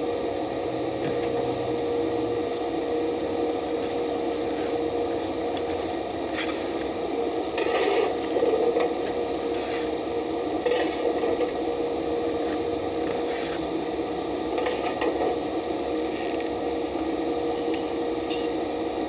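Stick-welding arc: a steady crackling sizzle over a constant hum, with sharper pops and louder spells about eight and eleven seconds in.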